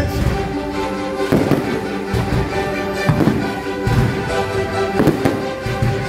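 Fireworks display: aerial shells bursting in sharp reports about every second, over steady music.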